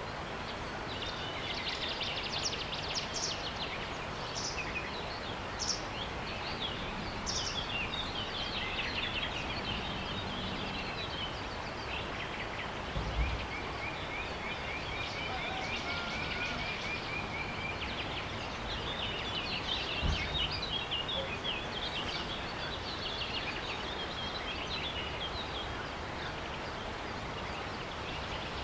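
Several small birds chirping and singing over a steady background hiss, with a long, even trill partway through. Two brief low thumps come about halfway through and again a few seconds later.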